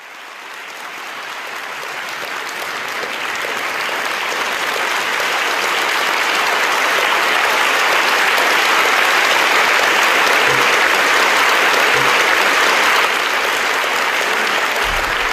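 Large audience giving a long ovation. The clapping swells over the first several seconds, then holds steady and loud.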